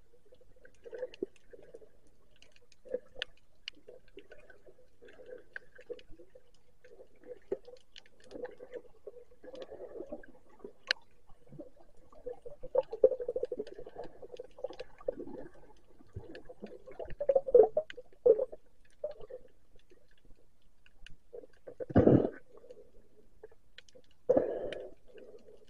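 Muffled underwater sound heard through a camera's waterproof housing: water movement with irregular soft knocks and crackles, and a few louder thuds in the second half.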